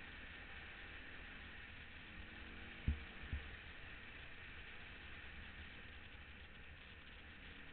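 Dirt bike engine running faintly under a steady hiss of wind and road noise, with two sharp knocks about three seconds in.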